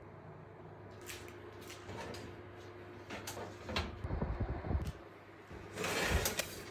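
Handling noises: scattered clicks, then a louder run of knocks and rubbing about four seconds in, and a short noisy burst near the end.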